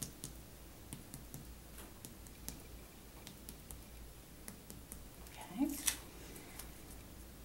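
Soft, irregular finger-on-finger percussion taps on a man's lower right chest, stepping down over the liver to find its upper border by the change in the percussion note.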